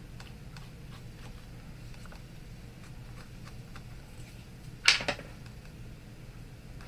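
Small faint taps and ticks of paper craft pieces being handled on a work table. About five seconds in comes a sharp double knock, two hits close together, the loudest sound.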